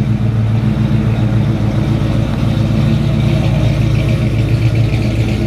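1968 Ford F100's 351 Cleveland V8 with a Holley 750 double-pumper carburettor, running loud and steady at low speed as the truck drives slowly past.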